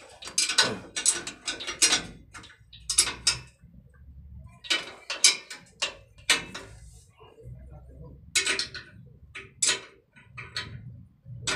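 Irregular sharp metallic clicks and clinks as air-brake line fittings are worked onto a trailer's relay valve.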